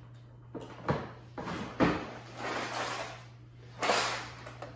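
Hard plastic knocks and rattling as a Milwaukee Packout organizer case is lifted off a table and carried, with a couple of sharp knocks and a longer shuffling rattle.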